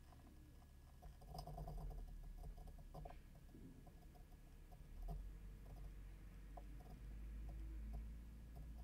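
Seagate Barracuda Pro 7200 rpm hard drive running as it boots after power-on: a faint low hum with scattered soft clicks and ticks. The hum swells about five seconds in and again near the end.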